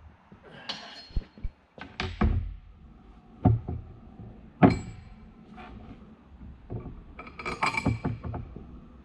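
Steel transmission parts clinking and knocking as they are handled and set down, a series of sharp separate knocks and clinks with the loudest about halfway through and a short cluster of ringing clinks near the end.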